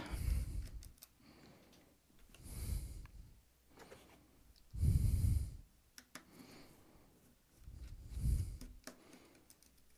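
A person breathing close to the microphone, one breath about every two and a half seconds, with faint light clicks between the breaths.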